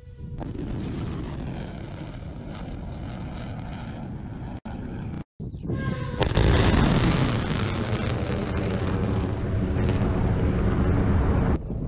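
Roar of missile rocket motors at launch, with a slowly shifting, phasing tone. The roar breaks off briefly about four and a half seconds in. A louder roar starts suddenly about six seconds in and eases off slowly.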